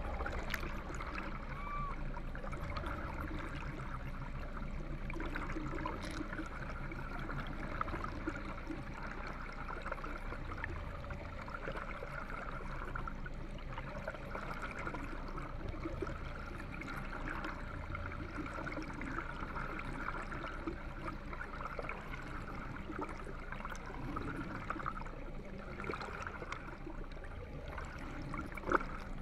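Underwater water noise: lake water rushing and gurgling past an underwater camera, with a steady low hum underneath. A single sharp knock near the end.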